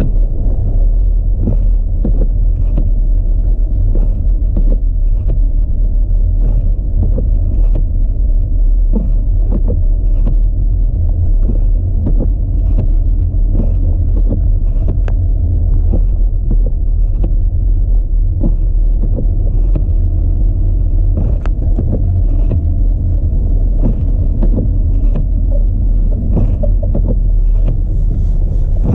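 Audi A4 driving on a snow-covered road: a steady, loud, low rumble of road and wind noise, with frequent small clicks and knocks throughout.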